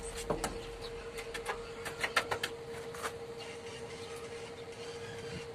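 Scattered light metallic clicks and taps as a stick welder handles the electrode holder and welding rod, heard over a steady hum. The taps come mostly in the first three seconds.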